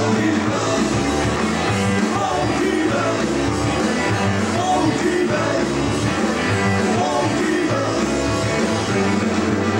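A British beat-style rock band playing live, with electric guitar, electric bass and drums keeping a steady rock-and-roll beat, and a man singing the lead vocal.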